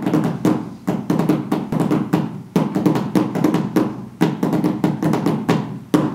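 Intro music with a quick, even tapping beat over low pitched notes, louder accents recurring about once a second.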